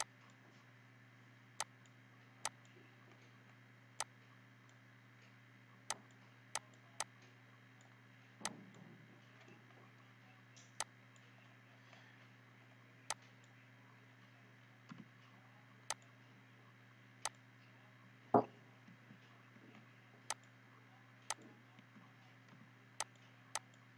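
Computer mouse clicking, single sharp clicks at uneven intervals, with a slightly heavier knock a little past the middle, over a faint steady hum.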